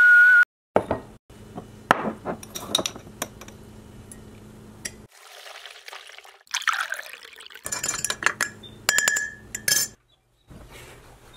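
A stainless kettle on a gas stove whistles one steady high tone, which cuts off about half a second in. Then come clinks of kitchenware, hot water poured from the kettle into a ceramic mug, and near the end a spoon stirring in the mug, clinking and ringing against its sides.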